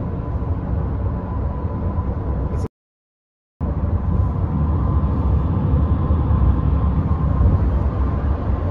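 Steady tyre and road noise of a minivan cruising on a concrete freeway, heard from inside the cabin as a low rumble. It cuts out to silence for about a second about a third of the way in, then resumes.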